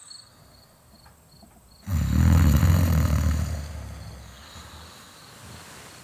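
A person snoring: one long, loud snore begins about two seconds in and fades away over about three seconds.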